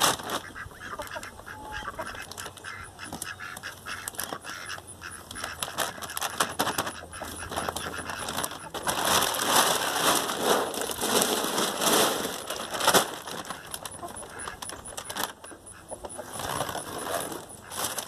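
Dry feed pellets poured from a sack into a galvanized metal can, a rattling, hissing pour that is heaviest from about nine to thirteen seconds in.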